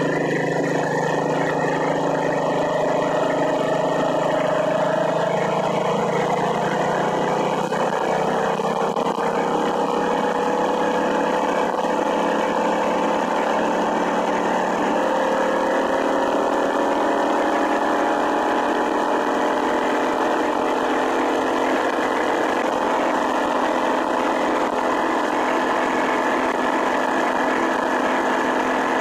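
Small single-cylinder engine of a motorized bicycle running under way. Its pitch climbs slowly over the first ten seconds or so as the bike gathers speed, then holds steady at cruising speed.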